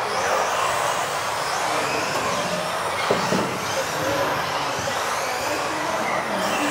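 Several 1:10 electric off-road RC buggies racing, their brushless motors whining up and down in pitch over a steady hiss, in a large indoor hall. A sharp knock sounds about three seconds in.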